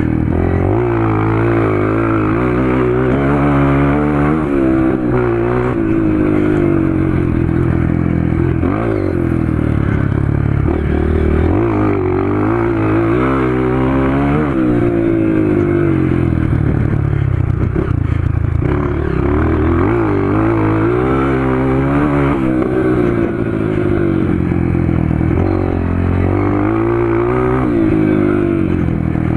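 Honda CRF 230 dirt bike's single-cylinder four-stroke engine, with an FMF Powercore 2 exhaust, running loud under hard riding. Its pitch climbs under throttle and drops back again and again as the rider accelerates and eases off.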